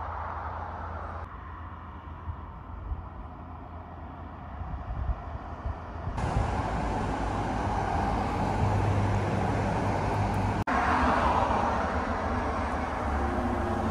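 Roadside ambience: road traffic going by with a low rumble underneath, the sound changing abruptly about a second in, about six seconds in and about eleven seconds in. Music with sustained organ-like tones begins at the very end.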